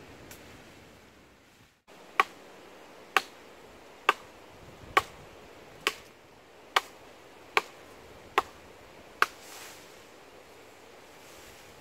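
Blade chopping into a green wooden pole: eight sharp chops, about one a second, starting about two seconds in.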